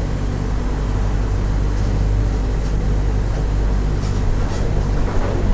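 Mercedes-Benz OF 1418 bus's diesel engine running steadily, with a few faint rattles.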